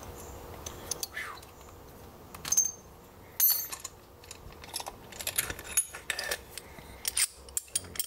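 Light metal clicks and clinks as the lock pick and tension wrench are drawn out of an opened Mul-T-Lock G-series padlock and the padlock is handled. The loudest is a short ringing clink about three and a half seconds in.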